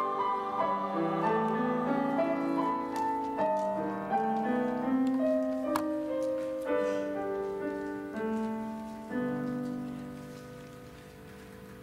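Grand piano playing a slow passage of held chords and single notes, dying away near the end.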